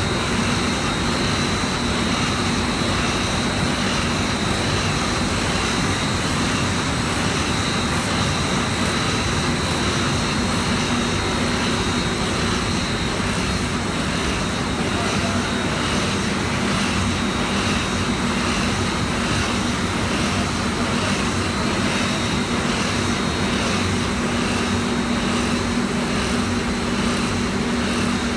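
Paper gravure printing machine running: a loud, steady mechanical drone with a constant low hum and a high whine, over a faint regular pulsing as the paper web runs through the rollers.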